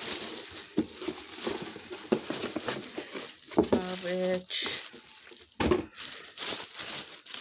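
Rustling and crinkling of items being handled and unpacked from a bag, with many small clicks and a sharp crinkle about four and a half seconds in. A short held vocal sound comes just before that crinkle.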